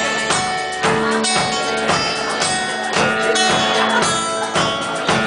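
Live band music without singing: strummed guitar over held notes and a steady beat of about two strokes a second.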